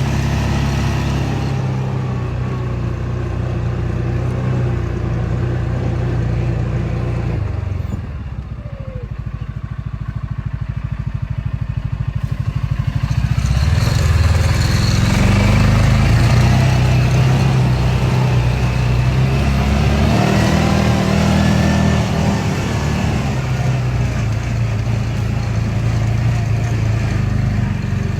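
Motor vehicle engine running while driving, easing off about eight seconds in and picking up again a few seconds later.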